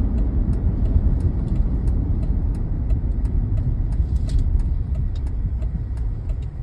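Vehicle driving, heard from inside the cab: a steady low engine and road rumble with many small rattles and ticks.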